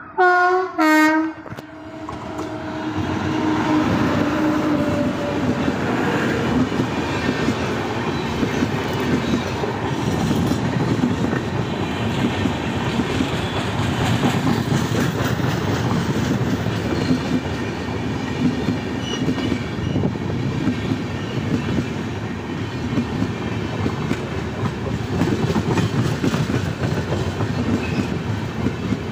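WAP7 electric locomotive sounding two short horn blasts as it approaches. The passenger train then passes close by, its coaches rolling steadily with the clickety-clack of wheels over rail joints.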